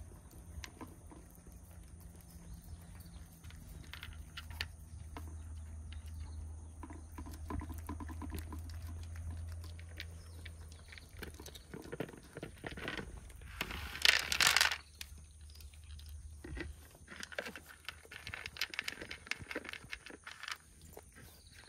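Stray cats eating, with a steady run of small clicks. About fourteen seconds in there is a brief loud rustling burst. A low steady hum stops about sixteen seconds in.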